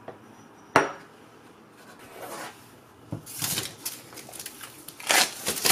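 A small ceramic dish is set down on the cutting mat with one sharp knock about a second in. Then comes a run of dry rustling and scraping as a pad of watercolour paper is lifted and handled.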